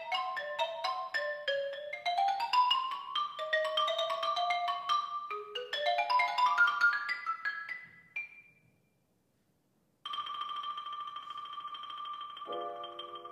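Xylophone played fast with two mallets in quick rising and falling runs, dying away about eight seconds in. After a short total silence, one high note is rolled steadily, and piano chords come in under it near the end.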